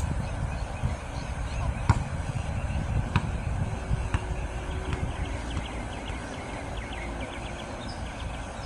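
Wind rumbling on the microphone, with a few sharp thuds of a basketball about two and three seconds in, as the shot comes off the hoop and bounces on the court, the last one weaker.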